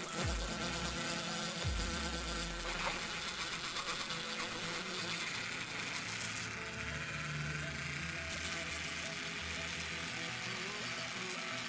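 Handheld high-speed rotary grinder with a carbide burr, running as a steady high whine while it rasps aluminium out of the port of a Yamaha Jupiter Z cylinder head during porting. The grinding rasp eases for a second or two past the middle, then picks up again.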